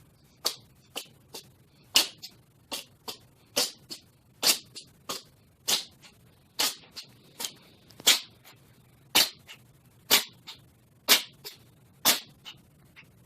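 A cat sneezing over and over in a long fit, short sharp sneezes coming about two a second.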